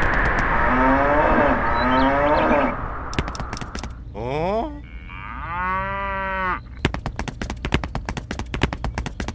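A cow mooing once, one long call about midway, laid over the scene as a sound effect. A short rising glide comes just before it, and a fast run of clicks follows in the second half.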